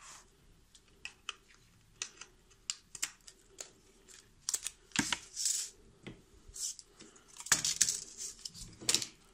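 Small plastic electronics being handled: a USB plug pushed into a plug-in charger and the cable and reel moved about on a cutting mat. This gives scattered clicks and taps, with a few louder rustles in the middle and near the end.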